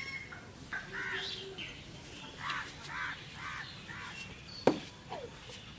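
A bird calling: one call about a second in, then a run of four calls about half a second apart, and a single sharp knock near the end, the loudest sound.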